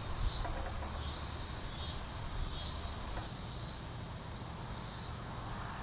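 Insect calling outdoors: a short, high buzzing rasp repeated about every second, over a low steady rumble.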